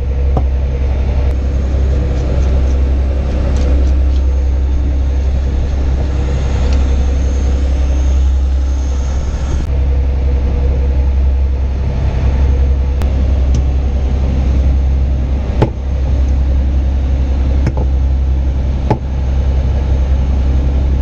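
A boat engine runs steadily, a low drone throughout. Over it a knife scrapes scales and now and then knocks sharply on a wooden cutting board as fish is cut up.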